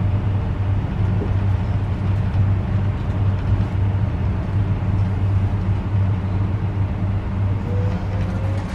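Train running at speed: a steady low hum and rumble.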